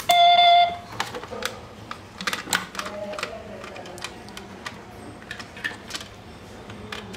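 A short electronic beep lasting under a second, followed by a run of scattered small clicks and taps from a screwdriver and hard plastic case parts being handled as the money bank's plastic casing is unscrewed and opened.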